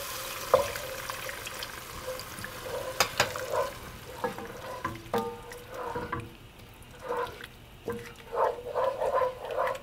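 Chicken broth poured from a can into a hot pot of butter-and-flour roux with onion and celery, hissing for the first three seconds or so. After that, a wooden spoon stirs and scrapes the pot in short irregular strokes as the sauce comes together.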